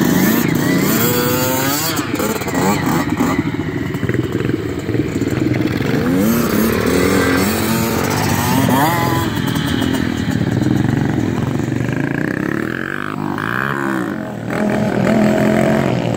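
A Kawasaki KX65 two-stroke and an SSR four-stroke pit bike revving and accelerating away side by side in a drag race. Their engine notes rise again and again as they shift up through the gears.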